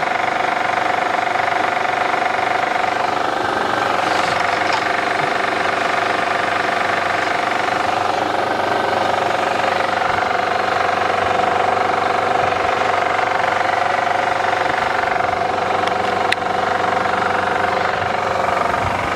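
2008 Honda Odyssey's 3.5-litre V6 idling steadily with a constant tone. The power steering no longer hisses after the pump repair.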